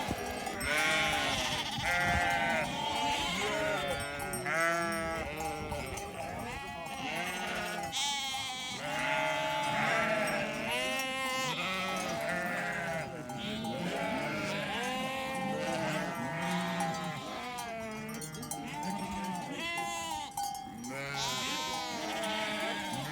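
A flock of sheep bleating, many overlapping calls one after another, with bells ringing among them.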